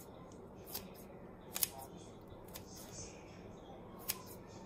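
Kitchen scissors snipping into bread dough: a few sharp clicks as the blades close, spaced irregularly about a second apart, one of them a quick double.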